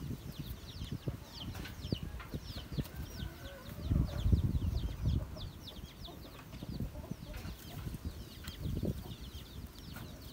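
Birds chirping over and over in quick short falling calls, over low rustling and bumps of hands working close to the microphone.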